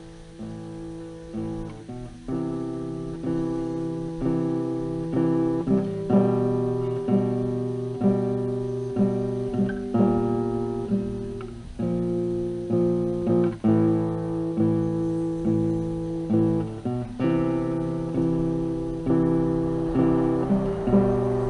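Background music: acoustic guitar playing plucked and strummed chords at a steady, even pace.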